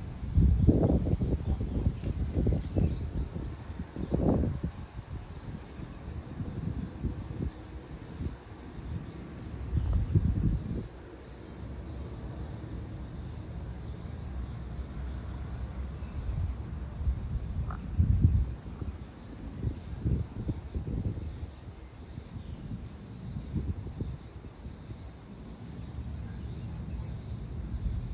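Steady high-pitched insect chorus in the evening, broken by gusts of wind buffeting the microphone with low rumbling bursts. The gusts are strongest in the first few seconds and return several times.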